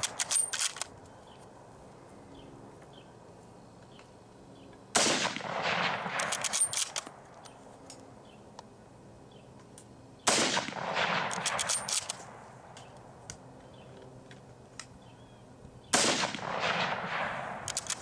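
Type 99 Arisaka 7.7×58mm bolt-action rifle fired three times, about five and a half seconds apart. Each loud shot trails off in a rolling echo and is followed by a few quick metallic clicks of the bolt being worked.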